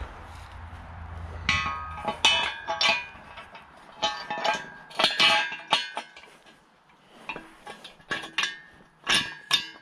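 Steel parts of a folding engine hoist clanking together as the boom is fitted to the mast and a bolt pushed through: clusters of sharp metal knocks, each leaving a short ringing tone, starting about a second and a half in and recurring until near the end.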